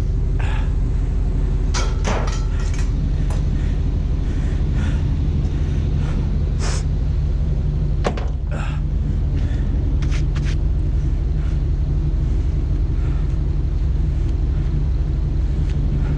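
Vehicle engine idling steadily, with scattered short clicks and knocks over it.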